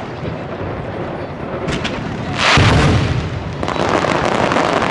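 Aerial fireworks shells bursting: a loud boom about two and a half seconds in, preceded by a few faint cracks and followed by crackling.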